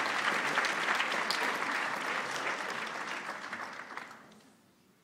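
Audience clapping in a cinema auditorium, dense applause that fades away about four seconds in.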